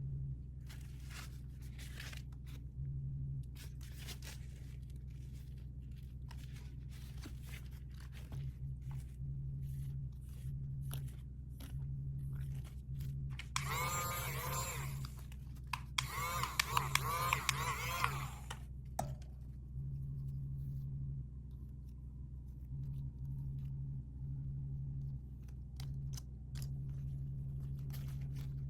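Packaging being handled and opened by hand: scattered small clicks and crackles, with two louder bursts of crinkling and tearing about halfway through. A faint low hum sits underneath.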